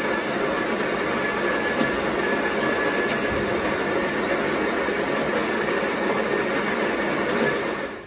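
Sunbeam Barista Max espresso machine's built-in burr grinder grinding coffee beans into the portafilter. It runs steadily with a faint high whine and stops suddenly near the end.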